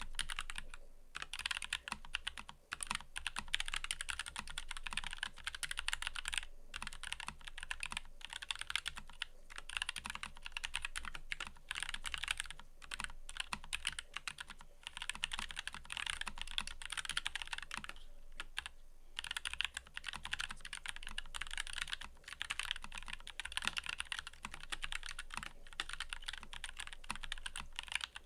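Fast, continuous typing on a mechanical keyboard: a dense run of key clicks with a few brief pauses between bursts.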